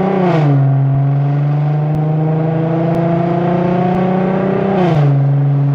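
Infiniti Q50 exhaust with the mufflers deleted and test pipes fitted, droning loudly as the car is driven. The engine note climbs slowly, then drops sharply twice: about half a second in and near the end.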